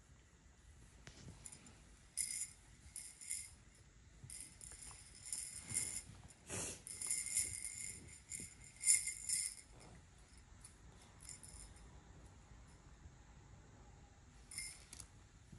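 A small jingle bell shaken in short bursts of ringing for several seconds, with one more brief shake near the end.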